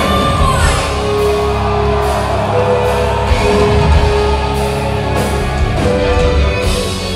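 Symphonic metal band playing live at full volume: drums, bass, electric guitars and keyboards.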